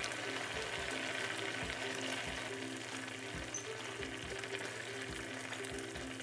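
Fish curry bubbling and sizzling steadily in a frying pan on medium heat, a dense crackling hiss. Background music with a steady beat plays underneath.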